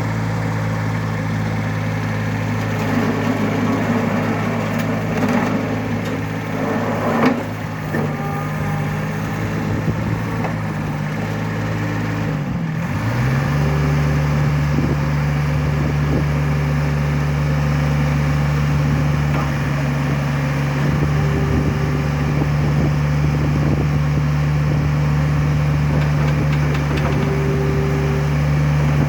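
Bobcat 443 skid steer's diesel engine running steadily. About twelve seconds in, its pitch dips briefly, then it settles and runs a little louder at a steady speed.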